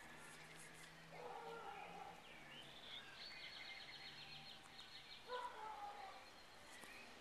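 Faint animal calls: a short falling cry about a second in and another about five seconds in, with a rapid high trill between them, over quiet outdoor background.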